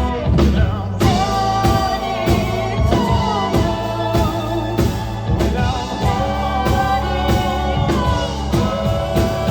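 Live band music: drums keep a steady beat over bass while a voice sings long held notes without words.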